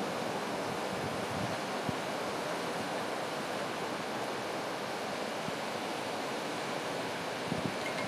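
Sea surf with waves breaking in a steady rush, with a few brief low gusts of wind buffeting the microphone.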